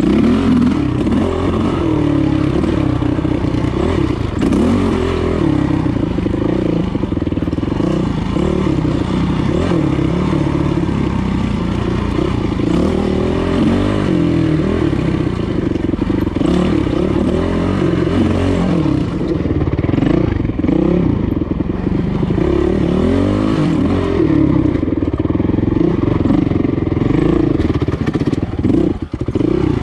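Dirt bike engine running under constant throttle changes while riding a technical single-track trail, the revs rising and falling every second or two.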